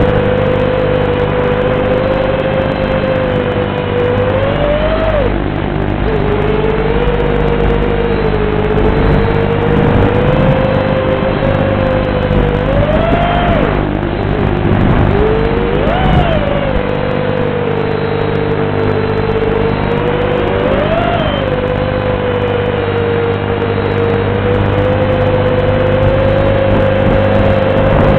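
FPV quadcopter's motors and propellers whining steadily, picked up by the video transmitter's built-in microphone. The pitch swoops up briefly four times with bursts of throttle.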